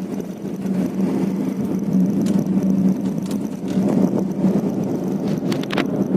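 Car interior noise while driving: a steady low engine and road hum, with a few light clicks in the middle and near the end.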